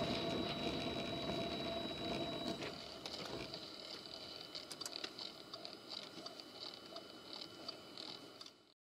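Dashcam recording from inside a moving car's cabin: steady road and engine noise with a faint high whine, which drops in level about two and a half seconds in and is then dotted with light, irregular clicks. The sound cuts off suddenly near the end.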